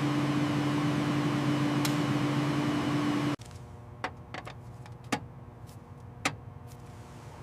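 Ultrasonic cleaning tank running: a steady electric hum with hiss that cuts off abruptly a little under halfway through. Then, against a quiet background, four or five sharp clicks.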